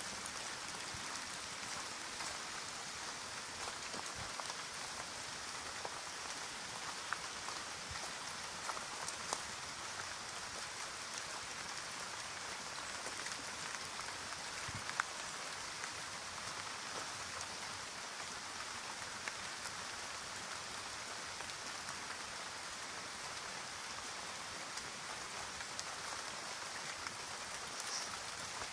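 Steady rain falling on forest foliage and a wet dirt track: an even hiss, with a few sharper drop ticks here and there.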